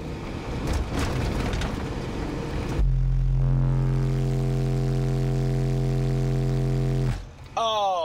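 Sundown SA12 Ultra prototype subwoofer playing an SPL burp inside a vehicle: a single steady, deep bass tone that starts abruptly about three seconds in, holds for about four seconds and cuts off sharply. It measures just short of 149 dB. Before it there is rubbing and handling noise.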